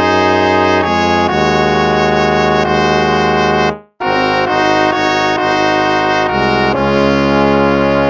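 Instrumental hymn music in slow, sustained chords, brass-like in tone. It stops briefly about four seconds in before the next phrase begins.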